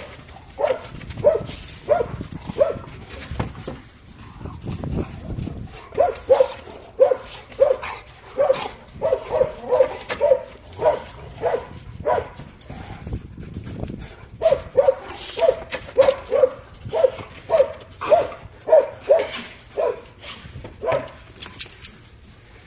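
Dog barking repeatedly during rough play, a steady run of short barks about one and a half a second, pausing briefly around four seconds in and again around thirteen seconds.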